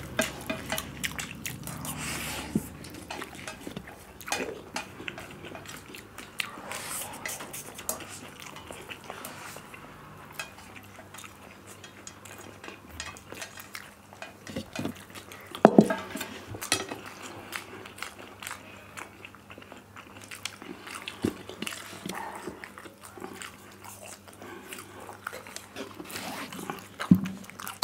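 Close-up eating sounds: chewing and biting spicy instant noodles and apple slices, with scattered clicks and taps of chopsticks on steel plates and cups, and one sharper knock about sixteen seconds in.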